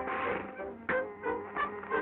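Early-1930s cartoon orchestral score, mostly bowed strings, with a short hissing rush at the start and one sharp hit just under a second in, the sound thin and cut off at the top like an old film soundtrack.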